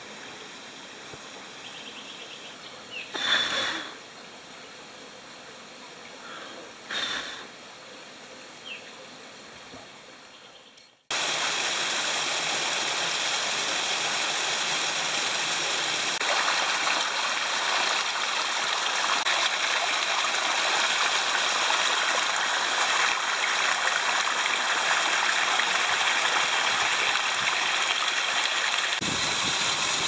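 Rushing water of a waterfall, a steady even roar. It is quieter for the first ten seconds or so, with two short louder sounds, then much louder after a sudden cut.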